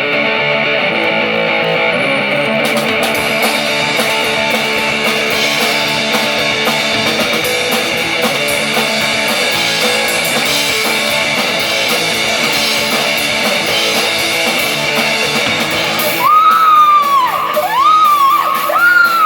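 Live rock band playing an instrumental passage: electric guitar and bass over drums, with cymbals coming in after about three seconds. Near the end, a few high sliding notes rise and fall above the band.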